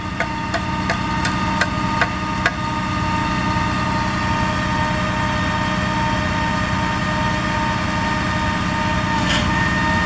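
Concrete pump running steadily as it pushes concrete through the hose, a constant engine hum. A quick series of sharp clicks, about three a second, comes in the first couple of seconds, and a short hiss near the end.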